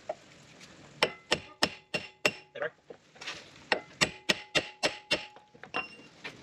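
Hammer blows on a steel drift held against a steering knuckle, cracking the lower ball joint's taper loose. The metallic strikes ring faintly and come in two quick runs: about five blows, a short pause, then about six more.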